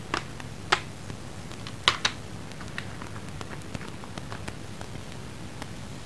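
Sharp clicks and taps of coloured pencils and a water brush pen being handled and set down, the loudest near the start and about two seconds in, then fainter scattered ticks over a low steady hum.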